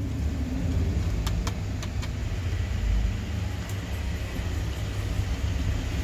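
Steady low rumble of background road traffic, with a few light clicks between one and two seconds in as the toy car is handled.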